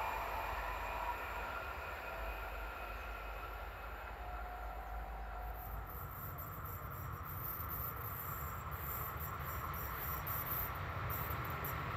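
A Stadler FLIRT electric train runs away into the distance, its whine fading. About halfway through, rapid high chirping from crickets starts up over the low rumble of another train approaching from afar.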